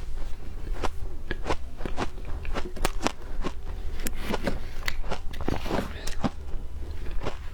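Frozen ice being bitten and chewed close to the microphone: many sharp crunches coming quickly and unevenly, several each second.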